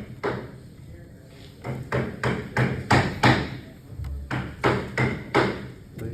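Hammer blows in quick runs of about three strikes a second, with a pause of about a second between the runs.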